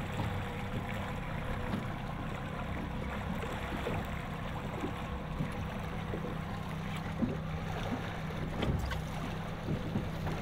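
A boat's motor running steadily, with water and wind noise around it.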